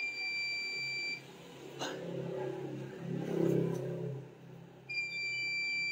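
Two long electronic beeps, each one steady high tone lasting just over a second, about five seconds apart. A muffled low sound fills the gap between them.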